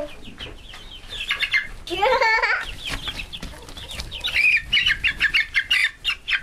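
Chickens clucking and squawking in alarm while being chased and grabbed by hand, with a quick run of clucks in the second half.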